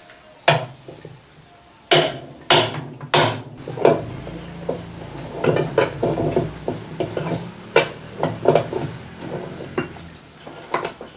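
Sledgehammer striking a special spanner on a washing machine's transmission nut to break it loose: four sharp metal blows in the first few seconds, then a run of lighter metallic clinks and knocks.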